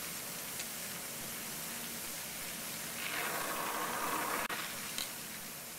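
Oxy-acetylene torch flame hissing steadily as it heats a saw blade's teeth to braze on carbide tips with silver solder, growing louder for about a second and a half around three seconds in.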